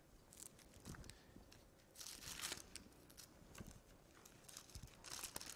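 Faint rustling of thin Bible pages being turned by hand, in a few brief bursts.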